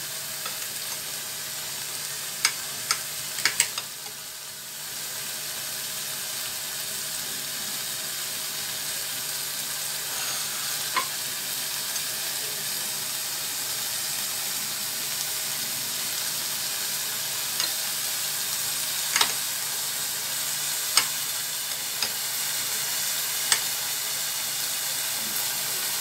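Steady sizzling of small pieces of boneless chicken frying in oil, with sharp clicks now and then as a knife cutting slices of white bread strikes the plate.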